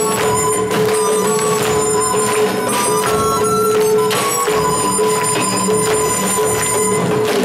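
Live stage music: a wind-instrument melody over a note held steadily underneath, with regular drum strokes.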